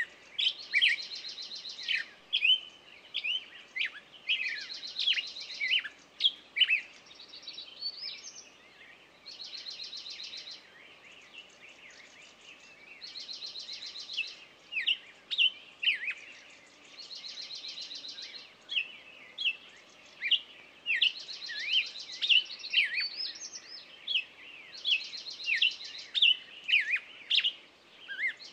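Songbirds singing: a fast, buzzy trill lasting about a second comes back roughly every four seconds, with many short, sharp chirps in between.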